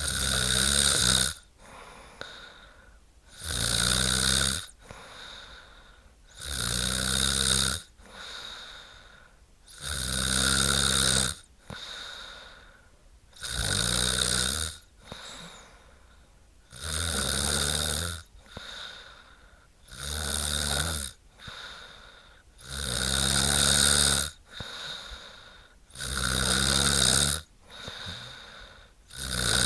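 A woman snoring in a steady rhythm: a loud snore about every three and a half seconds, with a softer breath between each one.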